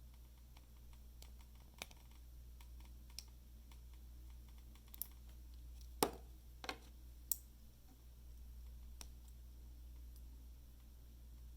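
Small plastic mechanical keyboard switch parts (Outemu brown switches) clicking and tapping as they are handled and taken apart. The clicks are scattered and light, with a louder cluster of three about six to seven and a half seconds in.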